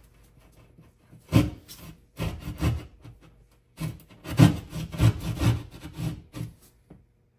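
Hand jab saw cutting through drywall: rasping saw strokes in uneven spurts, starting about a second in, with the longest run from about four seconds to six and a half.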